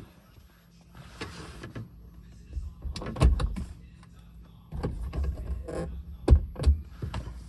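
Clicks and knocks of the Lamborghini Murcielago's overhead sunglass holder compartment being handled, with two pairs of sharp knocks each about a third of a second apart.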